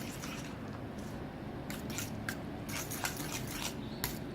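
Instant ramen noodles being stirred and mixed with their sauce in a pan: wet squishing, with a few sharp utensil clicks and scrapes over a steady low hum.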